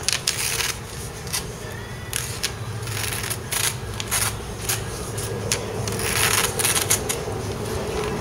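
Sheet of paper rustling and crinkling in quick irregular crackles as it is folded and wrapped around a knife, with a denser burst of crumpling near the end, over a steady low hum.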